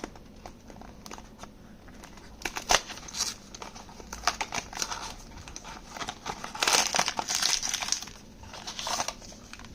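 Crinkling and rustling of blind-box packaging being opened and handled by hand, with irregular small clicks and crackles; the loudest crinkling comes about seven seconds in.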